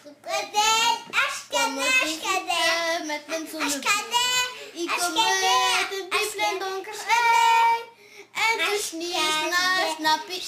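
A young child singing in a high voice, holding long wavering notes, with short breaks near the start and about eight seconds in.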